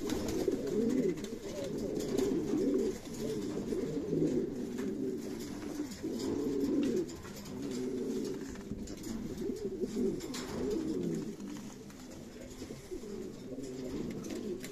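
Pigeons cooing over and over in low, rolling phrases: the courtship coo of a cock Valencian pouter (buchón valenciano) pressing a hen.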